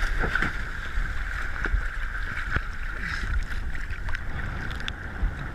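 Wind on the microphone and choppy sea water lapping and splashing around a camera held at the water's surface, with a steady hiss and scattered small splashes.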